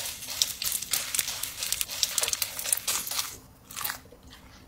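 A giant Snickers bar being unwrapped and eaten: the wrapper crinkles and the bar crunches in a dense run of small, irregular crackles lasting about three seconds, with one short burst near the end.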